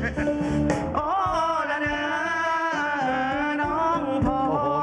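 Live band playing a Thai song: a melodic lead line of long held notes with vibrato over bass and occasional drum hits.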